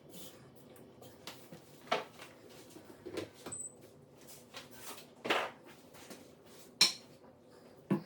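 Tape being pulled from a roll and pressed along the joint between a countertop and its backsplash, heard as a string of short rasps, clicks and knocks, the sharpest click near the seventh second.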